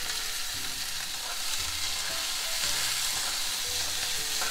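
Chopped onions sizzling steadily in hot oil in a metal kadai, with a spoon stirring them through the pan.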